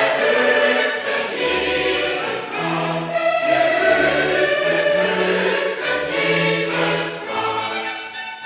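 A choir singing classical music with an orchestra, sustained chords over a bass line that moves note by note.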